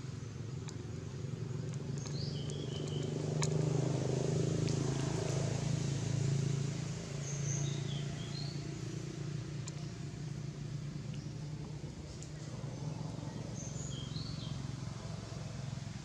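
A low, steady engine rumble, like a vehicle running, growing louder about three seconds in and easing off after about seven. A bird gives short high chirps three times.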